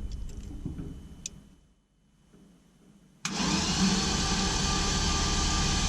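Starter cranking a GM LS-family V8 with the spark plugs out to pump oil through it, a steady whirring with no firing that starts abruptly about three seconds in.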